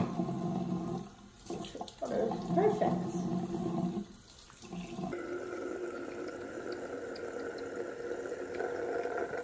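Bathroom sink faucet running, the stream splashing over a puppy and hands as it is soaped and rinsed. The sound drops away briefly twice, about a second in and about four seconds in.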